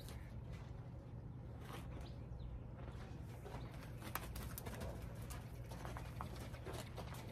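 A horse's hooves stepping and shuffling in soft sand, giving scattered soft thuds and scuffs over a steady low background rumble.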